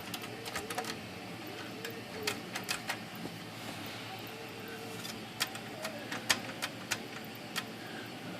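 Irregular small sharp clicks and taps from the parts of a Smith Corona Classic 12 typewriter being handled and prodded with its frame off, over a steady background noise.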